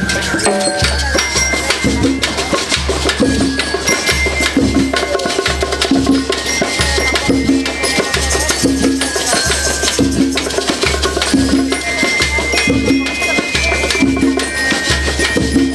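School rhythm band playing a march-like beat: bass drums pounding a steady pulse under snare drums, with shakers and tambourines rattling and bell lyres sounding the tune.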